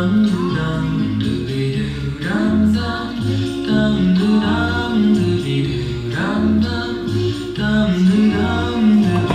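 Music: a song with singing over a repeating bass line.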